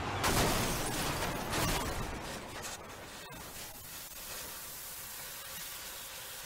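Car crash: a loud crunch of metal with breaking glass in the first two seconds, followed by a steady hiss of steam escaping from the smashed front of the car.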